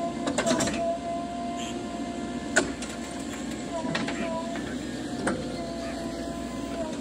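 JCB 3DX Plus backhoe loader running under work, its engine rumbling with a steady high whine that dips briefly around several sharp knocks from the digging and loading.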